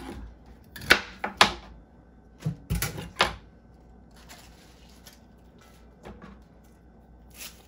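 Sharp knocks and clicks of a kitchen knife against a plastic cutting board as bok choy is cut and the knife is set down: three in quick succession about a second in, four more around three seconds in, and one near the end, with faint rustling of the leafy stalks being handled between.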